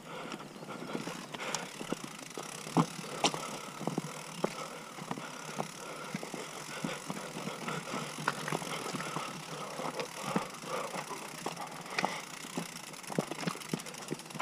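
Mountain bike rolling slowly over gravel and loose rock: tyres crunching, with many short clicks and knocks from stones and the rattling bike. The sharpest knocks come about three seconds in.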